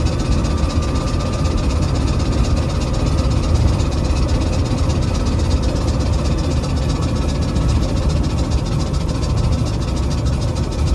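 Cabin noise of a new vehicle on the move: a steady low engine and road rumble with a faint high whine. It carries the abnormal noise that has sounded all through driving since the day after rain.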